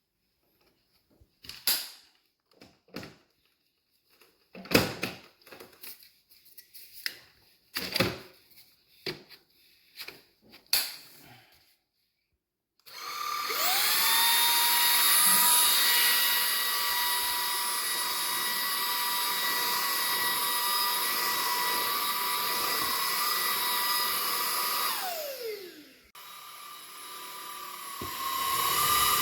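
A series of clicks and knocks, then the Gifel ZET-10 cordless stick vacuum's motor starts with a quick rising whine and runs at a steady high pitch for about twelve seconds. It spins down with a falling whine, then starts up again near the end.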